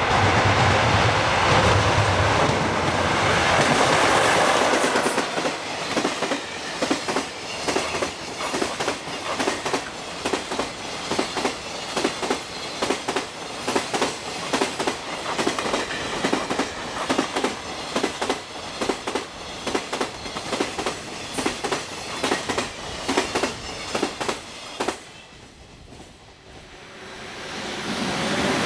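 Freight train passing over rail joints: a loud rush for the first few seconds, then a long, fast run of clickety-clack as the wagons' wheels strike the joints, which breaks off suddenly about 25 seconds in. A rushing noise builds again near the end.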